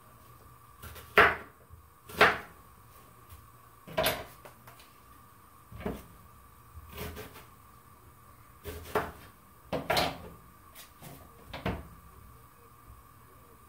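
Kitchen knife knocking on a cutting board as an onion is cut up: about a dozen sharp knocks at an uneven, unhurried pace, the first two the loudest.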